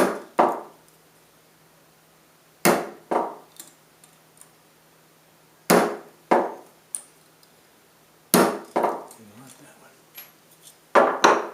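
Hammer blows on the thin steel of a tin-can strap hinge: sharp metallic strikes in pairs, about one pair every three seconds, five pairs in all, each ringing briefly.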